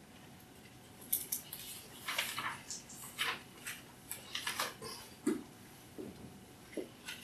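Dry-erase marker writing on a whiteboard. A run of short, irregular scratchy strokes starts about a second in, with a few brief squeaks among them near the end.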